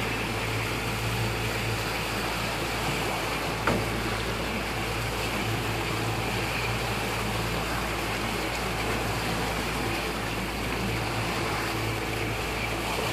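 Boat engine idling steadily under wind and open-water wash, with one brief knock about four seconds in.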